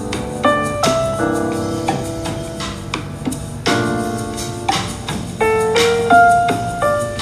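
Background lounge jazz music led by piano, with chords and single notes changing every second or so.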